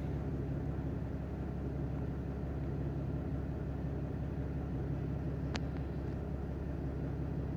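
Mercedes-Benz OM642 3.0-litre V6 diesel idling steadily at about 690 rpm, with the coolant still below operating temperature. A single click about five and a half seconds in.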